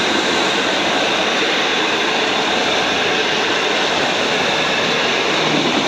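Train of passenger carriages rolling past at speed: a loud, steady rush of wheels on the rails. A low, steady hum joins near the end.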